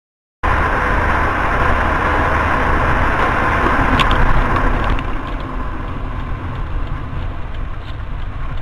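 Silence for about half a second, then the steady engine and tyre noise of a car driving, picked up by a dashboard camera inside the cabin, with one brief click about four seconds in.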